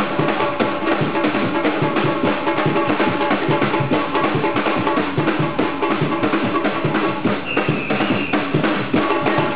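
Batucada samba drumming: deep surdo bass drums under sharper, higher drums keep up a dense, driving carnival samba rhythm. A short high whistle sounds about eight seconds in.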